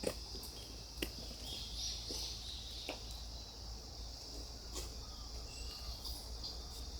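Steady high-pitched chorus of insects trilling, with a few light knocks about one, three and five seconds in.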